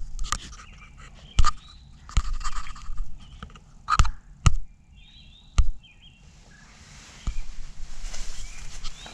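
Several sharp knocks and clicks, with small birds chirping between them, then a rustling noise that builds over the last three seconds.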